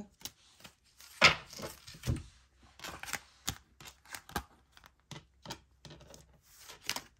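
Tarot cards being handled on a table: picked up, slid and laid down, with irregular light clicks and taps. The loudest snap comes about a second in.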